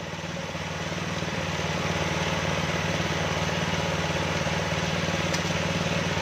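A small engine running steadily at idle, getting louder over the first couple of seconds and then holding even, with a faint click about five seconds in.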